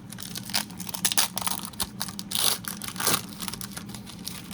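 Foil trading-card pack being torn open and crinkled: a run of sharp crackles and rips, quieter near the end.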